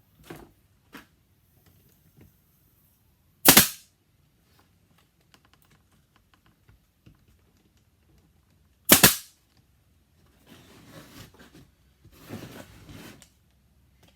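Bostitch 18-gauge brad nailer firing twice, two sharp shots about five and a half seconds apart, driving brads into plywood. Faint clicks come before them, and soft rustling of the wood being handled follows near the end.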